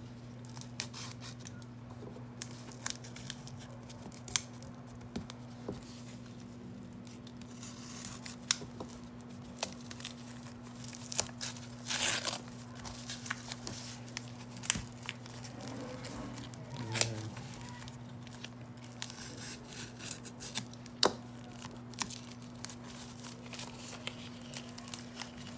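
Paper wrapping of a firecracker being torn and peeled off by hand, in short tearing and crinkling bursts with scattered sharp clicks, over a steady low hum.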